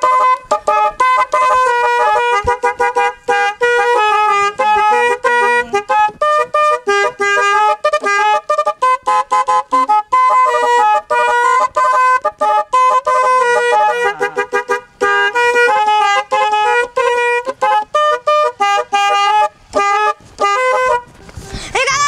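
Telolet snail horns on a mini truck, driven by a DAV musical horn module, playing a fast tune of short horn notes that step up and down several times a second.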